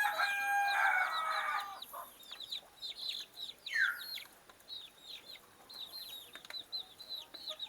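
A brood of month-old kampung chicks peeping continuously in short, high, falling notes, several per second. A longer held chicken call sounds over them for the first second and a half, and a louder falling squawk comes about four seconds in.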